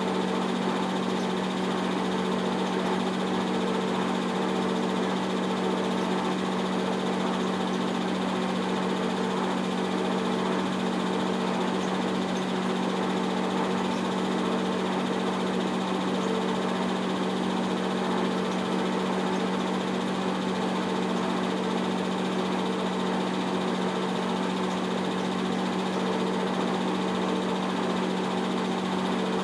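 A 70-year-old 8 mm film projector running: a steady motor-and-fan hum with a low drone over a constant hiss.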